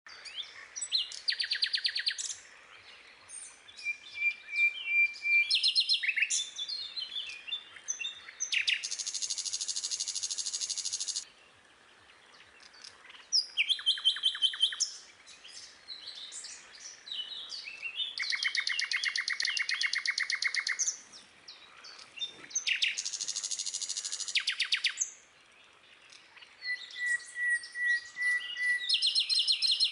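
A small songbird singing a varied song: rapid, rattling trills of two to three seconds, several times, mixed with quick chirps and short steady whistles, in phrases with brief pauses between them.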